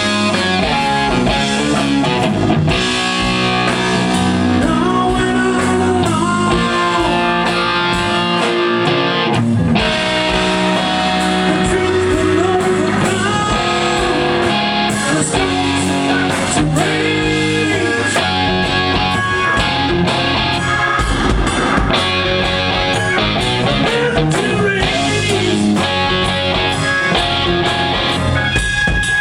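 Live rock band playing an instrumental passage, led by electric guitar with bent notes over the rest of the band.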